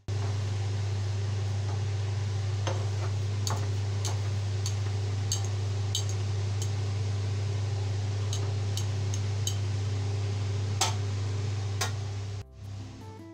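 Metal spatula tapping and scraping against a frying pan while mashing and spreading potato, about a dozen sharp irregular clicks over a steady low hum.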